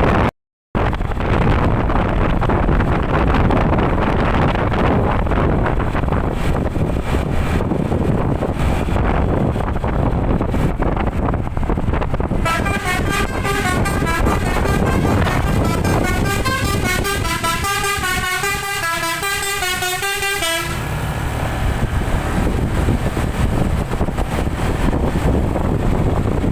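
Road and vehicle noise, then about twelve seconds in a bus telolet (basuri) horn plays a wavering multi-note tune for about eight seconds and cuts off suddenly, with the road noise running on after it.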